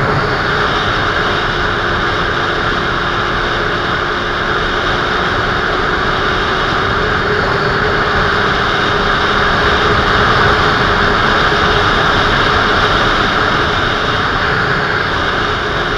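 Inline-four sport motorcycle cruising at a steady speed, with loud wind rushing over the microphone and the engine running steadily beneath it.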